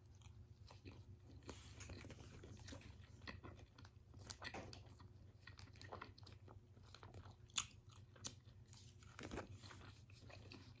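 Faint close-up eating sounds: someone chewing a chicken wrap, with irregular small crunches and mouth clicks, a few sharper ones near the end, over a low steady hum.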